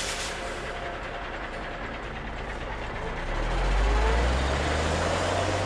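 Steady mechanical whirring, then an engine-like drone that rises slowly in pitch and grows louder from about three seconds in, as a toy bulldozer is worked to push plastic barrels.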